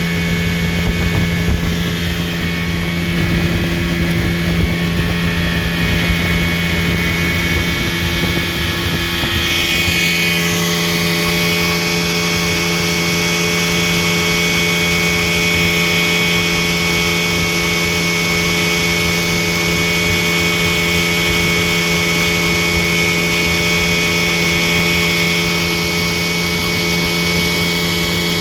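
A 1962 Scott-Atwater-built Wizard 14 hp two-stroke outboard motor running steadily on a 24:1 fuel mix, with a constant engine tone. A low rumble of wind and water underneath eases about ten seconds in.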